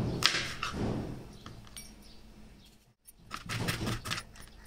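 Kitchen knife slicing an onion on a chopping board: a quick run of knocks and light clinks in the first second, then a short break and another run about three seconds in.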